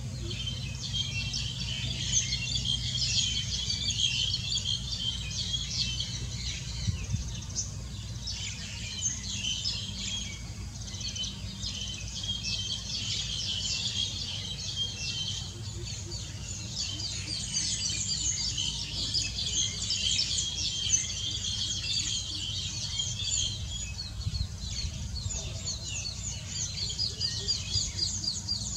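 Many small birds chirping and twittering at once in a dense, continuous chorus, over a steady low hum.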